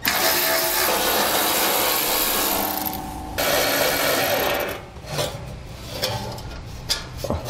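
Power ratchet whirring as it backs out the 10 mm bolts of a sheet-metal heat shield. The run changes tone about three seconds in and stops by the middle, followed by quieter clicks and rubbing as a loose bolt is drawn out by hand.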